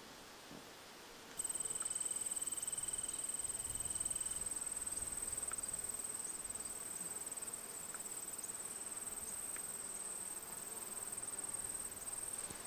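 An insect, cricket-like, trilling steadily at a high pitch, starting suddenly about a second in. A fainter, lower trill runs alongside it for a few seconds.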